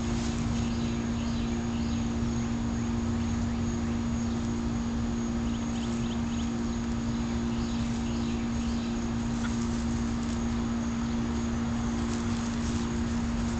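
A machine hums steadily at one low pitch, with faint scattered clicks and rustles over it.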